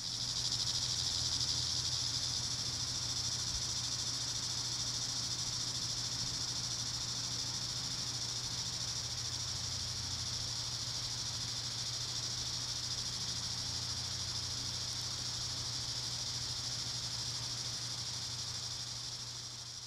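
A chorus of cicadas buzzing in one steady, unbroken high-pitched drone, with a faint low hum underneath.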